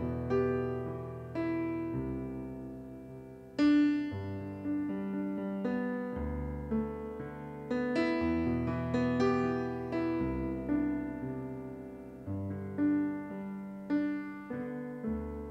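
Piano playing slow, gentle chords, each struck and left to ring and fade before the next, with a slightly louder chord about three and a half seconds in.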